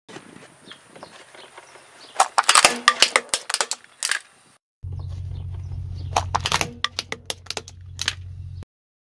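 A car tyre rolls over a wrapped Corny cereal bar, giving a quick run of crackling crunches about two seconds in. After a short break comes a car engine's low steady hum, with another run of crackles as a tyre crushes something. All sound stops just before the end.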